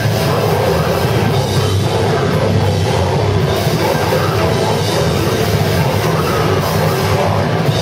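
Live heavy metal band playing loud, with electric guitars and a drum kit.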